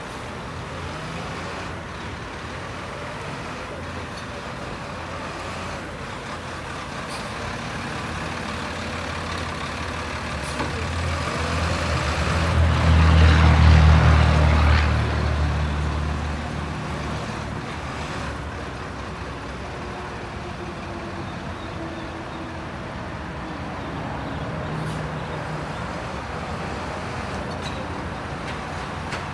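Diesel engine of a Crane Carrier automated side-loader garbage truck running as the truck drives up and passes close by, the low rumble swelling to its loudest about halfway through and then easing off.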